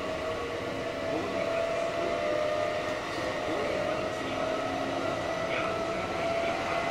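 Kintetsu 1230 series electric train running, heard on board. Steady rumble with a motor whine from its Hitachi GTO inverter traction system that rises slowly in pitch.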